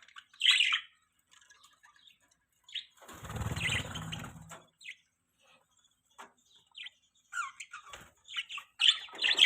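Budgerigars chirping in short, high calls: one loud chirp right at the start, then a quick run of chirps from about three-quarters of the way through. About three seconds in comes a rustling, whooshing noise lasting about a second and a half.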